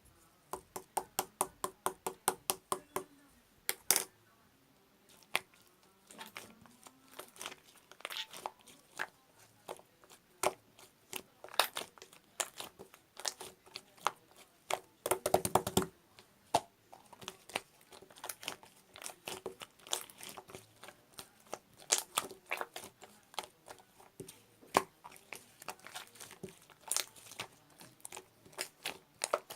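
Slime being squeezed and pressed by hand, making a run of sharp clicks and pops, about four a second at the start, with a dense cluster of crackling pops about halfway through.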